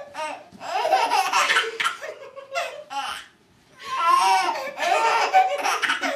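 A seven-and-a-half-month-old baby laughing in two long runs of rapid laughs, with a short pause about halfway through.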